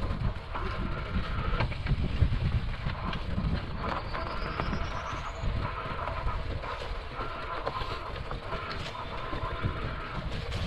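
Bikonit MD750 mid-drive electric bike ridden over a rough grass trail: steady wind and tyre rumble with the bike rattling over bumps, and a faint motor whine that comes and goes.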